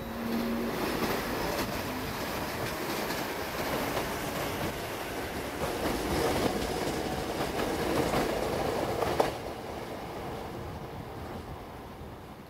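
Meitetsu red electric train running past at close range, wheels rumbling on the rails, with a sharp clack about nine seconds in, after which the noise fades as the train draws away.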